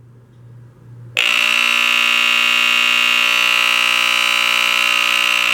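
Gillette Captain Kelly photoelectric smoke alarm set off on test, its mains-powered electromechanical horn starting suddenly about a second in with a loud, rough, steady buzz.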